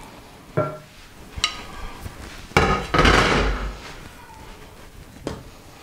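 Kitchen handling sounds: a few sharp knocks of things being set down on a worktop, and the loudest clatter about two and a half seconds in, trailing off over about a second. A last sharp click comes near the end.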